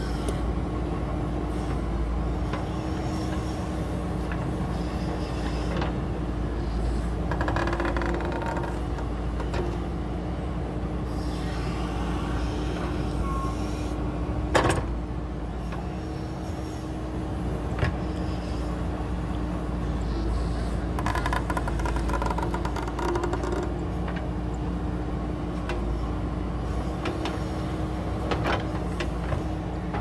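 JCB 3DX backhoe loader's diesel engine running steadily as the backhoe arm digs and swings soil, its note swelling a few times under hydraulic load. A sharp clank comes about halfway through, and a smaller one a few seconds later.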